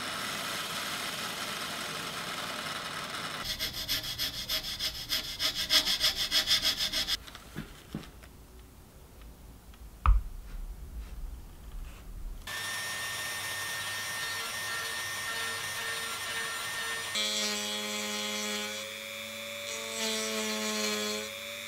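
Power tools cutting a recess into wood, one after another: a Forstner bit boring, turning into a rapid chatter for a few seconds, then a quieter stretch with one sharp knock. A router whirs steadily after that, and near the end a small high-speed rotary tool whines as it cuts, its pitch dipping and rising.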